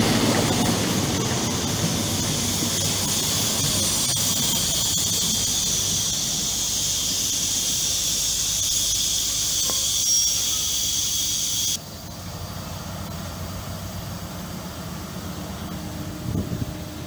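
GWR High Speed Train's Mk3 coaches rolling past on steel wheels with a steady high-pitched wheel squeal over the rumble of the train. The squeal stops suddenly about twelve seconds in, leaving a quieter rumble.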